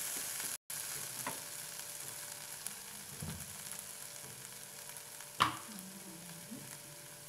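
Mushrooms frying in onion-tomato masala in a pan, a steady sizzle, with a wooden spatula scraping through them at first. A few sharp knocks come through, the loudest about five and a half seconds in, and the sound cuts out for a moment just after the start.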